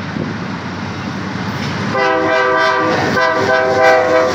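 Approaching freight train rumbling, then about two seconds in a diesel locomotive's multi-chime air horn sounds. It gives one blast, stops briefly after about a second, then sounds again.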